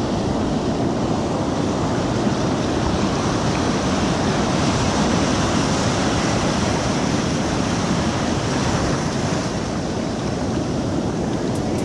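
Ocean surf breaking and washing in close by, a steady rushing wash, with wind on the microphone. A few short clicks come near the end.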